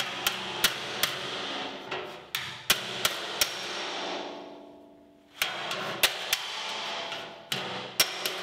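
Body hammer tapping the bent-up lip of a new sheet-steel VW Beetle floor pan off-dolly, with the dolly held on the flat metal nearby, to straighten the edge. Sharp metallic taps come a few a second in two runs, with a pause of about two seconds in the middle.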